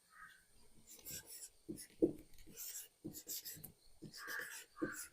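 Someone writing by hand: faint, short scratching strokes, several a second, starting about a second in.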